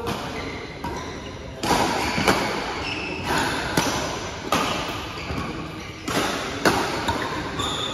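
Badminton rally: rackets striking the shuttlecock in quick turn, about one sharp hit every three-quarters of a second, each echoing in a large hall.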